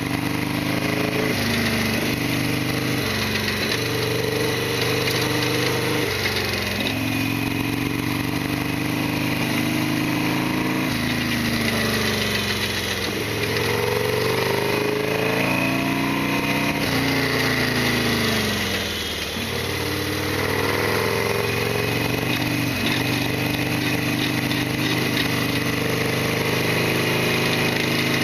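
Harley-Davidson Sportster XL1200R's 1200 cc V-twin engine running as the bike is ridden, its revs rising and falling again and again through throttle and gear changes, with a deep drop and climb back about two-thirds of the way through.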